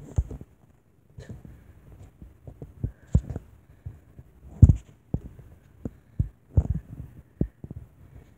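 Close handling noise from a leather baseball glove holding a softball, pressed against the microphone: a run of irregular dull thumps and scuffs, the loudest about four and a half seconds in.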